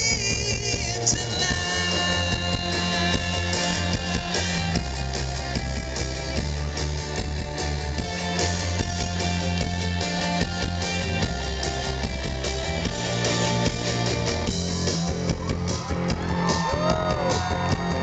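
Live rock band playing loud through the PA: drums, electric guitars and a bass line that moves every couple of seconds, with voices coming in over it near the end.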